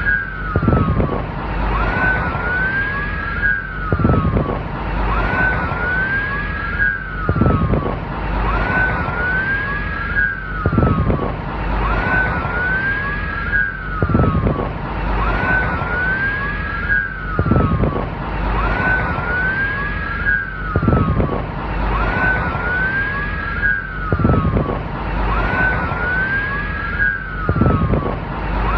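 Police siren wailing, each tone sweeping up, holding and falling away, with two wails overlapping. The same cycle repeats about every three and a half seconds as a loop, over a steady low rumble.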